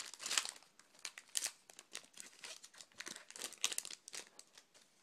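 Foil wrapper of an Upper Deck hockey card pack crinkling and crackling as it is handled, in quick irregular bursts of small crackles.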